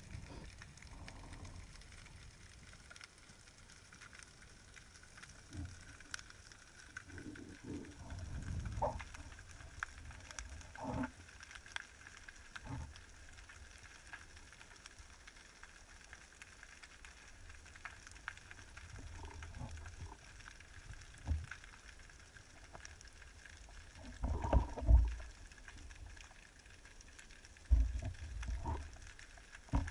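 Underwater sound picked up by a camera on a speargun: a faint steady hiss with scattered clicks, broken by irregular low thumps and rumbles from the diver's movement against the camera. The loudest is a cluster of thumps about 25 s in, and another near the end.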